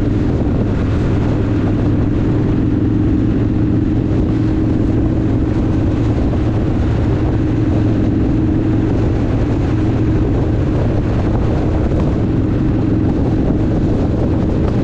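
Harley-Davidson motorcycle's V-twin engine running steadily at highway cruising speed, heard from the rider's own bike, with wind and road noise. The engine note holds the same pitch throughout, with no gear changes or revving.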